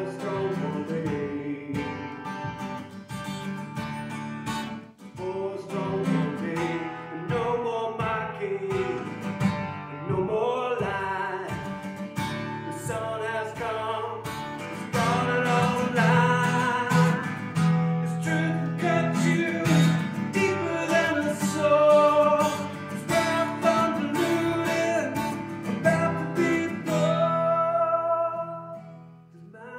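Acoustic guitar strummed steadily while a man sings a melody over it; the playing and singing drop away near the end.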